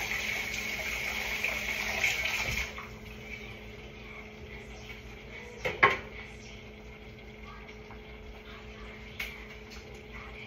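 Kitchen sink tap running, then shut off about two and a half seconds in. About six seconds in comes a sharp clank as a pot on the stove is handled, with a faint click near the end and a low steady hum throughout.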